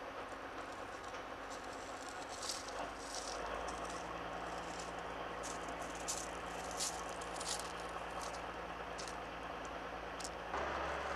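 Diesel engine of heavy lifting equipment running steadily, with scattered sharp metallic clinks and rattles from about two and a half seconds in; the running sound gets louder near the end.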